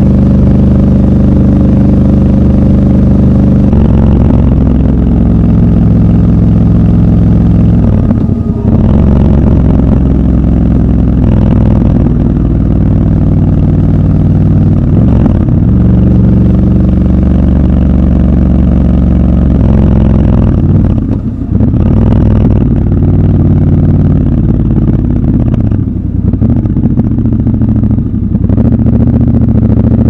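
Triumph Scrambler 1200 XC's parallel-twin engine running under way, heard raw from the bike. Its note holds steady for stretches and shifts in pitch several times, with a short dip in loudness about two-thirds of the way through.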